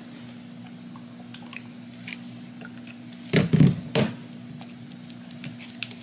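Small clicks and handling noises of a plastic primer bulb and fuel pump cover being worked apart by hand, with a brief cluster of louder knocks about three and a half seconds in. A steady low hum runs underneath.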